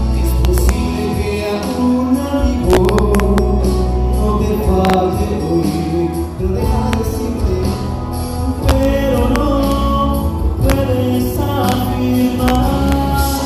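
Christian praise music: singing over a full instrumental accompaniment with steady bass notes and frequent sharp percussion hits.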